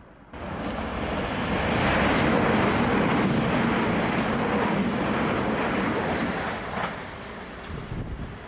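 Electric multiple-unit train passing close by at speed: a loud, steady rush of wheel and air noise that starts abruptly and falls away about seven seconds in, with a few low knocks near the end.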